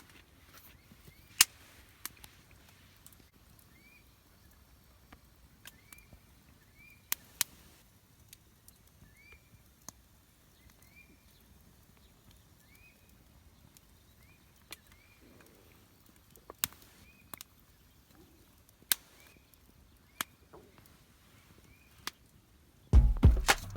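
Scattered sharp clicks and knocks of small objects being handled, with a small bird's short rising chirp repeated about once a second behind them. Music starts just before the end.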